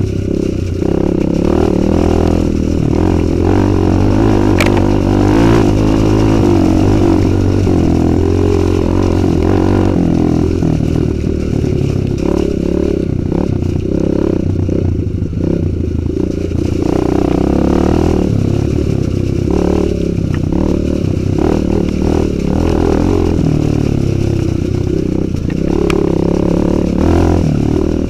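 Kawasaki KLX 150 G's single-cylinder four-stroke engine running under load as the dirt bike is ridden over a rocky, muddy trail, its note rising and falling with the throttle. A few short knocks and clatter from the bike over the rocks.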